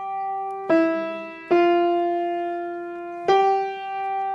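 A keyboard instrument playing a slow melody one note at a time: three single notes, each held and ringing steadily until the next. The playing is a beginner picking out a tune note by note.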